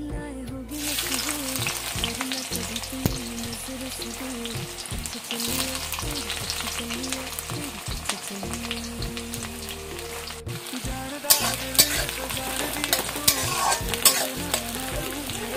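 Sliced onions sizzling in hot oil in a metal kadai. The sizzle starts about a second in as the onions hit the oil. Later a spatula stirs them, with several sharp scrapes and knocks against the pan.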